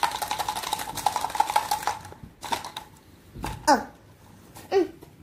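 Small clear plastic container shaken hard by hand, its contents rattling in fast, dense clicks for about two seconds, then a few short sounds that slide down in pitch.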